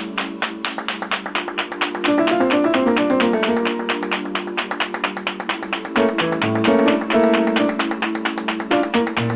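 Background music: a quick, even pulse of plucked-string notes, about six a second, with the chords changing a few times.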